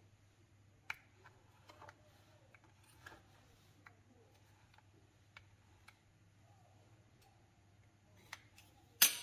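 Faint, scattered taps and clicks of rolled dough being cut into small pieces on a board, a few to a second or less. A louder clatter comes near the end.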